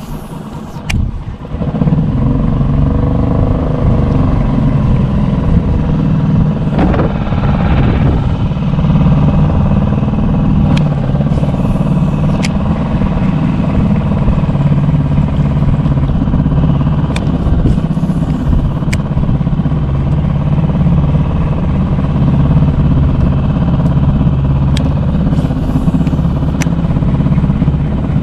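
A small engine running steadily at an even speed, starting about a second and a half in, with a few faint clicks over it.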